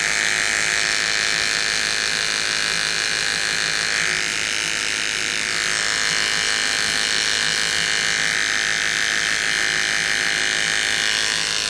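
Electric hair clippers running with a steady hum, shaving the fur from a sugar glider's skin to prepare a wound site for stitching.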